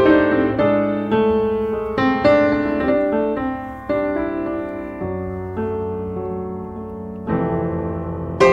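Background piano music: a slow, gentle tune of struck notes and chords that ring and fade, with a new chord every second or so.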